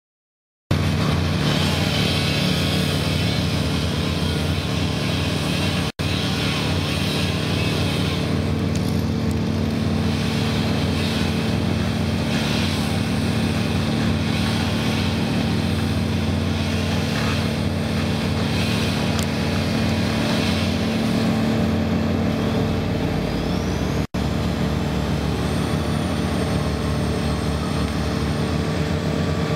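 Heavy diesel equipment engine running steadily, with a faint high rising whistle partway through.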